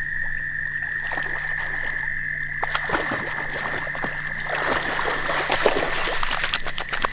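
German shorthaired pointer swimming in a pond, the water lapping and splashing around it, then splashing heavily through the shallows as it bounds out onto the bank in the last couple of seconds. A steady high frog trill sounds behind the splashing.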